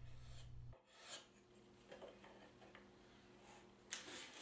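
Faint, short strokes of a curved card scraper scraping the profile of a wooden frame molding, a few soft scrapes with the louder ones near the end.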